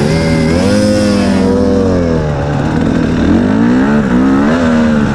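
Two-stroke KTM 250 EXC TPI enduro bike engine running loud under throttle, revving up and dropping back several times as it rides the trail.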